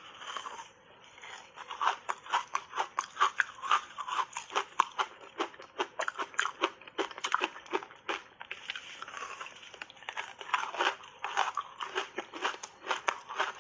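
Close-up crunching and chewing of big bites of reshaped ice coated in matcha tea powder: a dense run of sharp crunches, several a second, starting about two seconds in.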